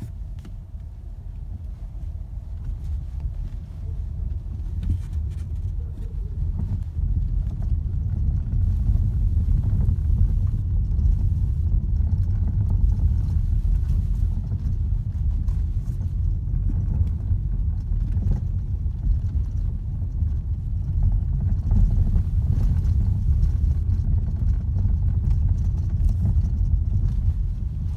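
New Volkswagen Tiguan's suspension knocking over and over under a steady low road rumble while driving. The owner takes it for a suspension fault, though the dealer found no extraneous noises.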